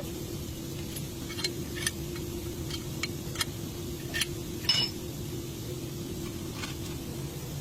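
Light metallic clinks of tools and parts being handled during a front wheel bearing job, about eight scattered taps over a steady low hum.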